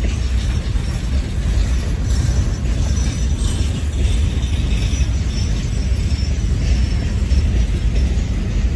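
Freight cars of a long CSX manifest train rolling past: a steady rumble of steel wheels on the rails, with a faint high wheel squeal now and then.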